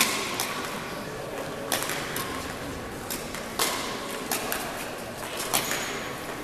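Badminton rackets striking shuttlecocks: several sharp hits at irregular intervals, a second or two apart, each echoing briefly in a large hall.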